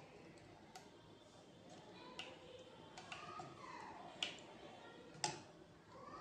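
A metal spoon tapping and clinking against a ceramic bowl while spooning batter, about five light taps roughly a second apart.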